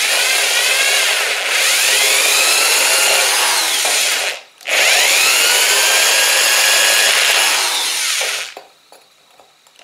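Cordless drill with a hole saw bit grinding into a glazed ceramic pot, in two runs of about four seconds each with a short break between, its whine sweeping in pitch as the speed changes. The drill stops about a second before the end.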